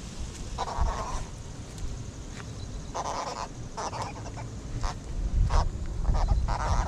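A freshly landed yellow catfish croaking out of the water in about seven short, rasping bursts at uneven intervals. Wind rumbles on the microphone underneath.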